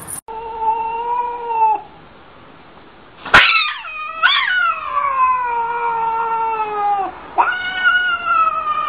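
Cat yowling: a short steady meow near the start, then a click, then a long wailing yowl of about four seconds that slides down in pitch, and a second one beginning near the end.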